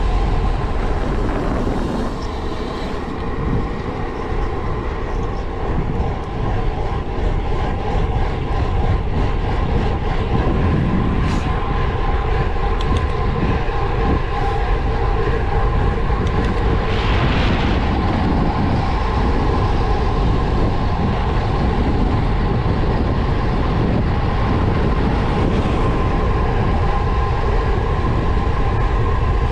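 Steady rush of wind and tyre rumble from a road bike descending a mountain road at speed, with a few faint steady tones running through the noise.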